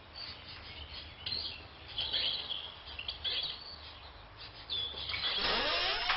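Small birds chirping in short, scattered calls over faint background noise. About five seconds in, a louder sound with bending pitch rises as a door is swung open.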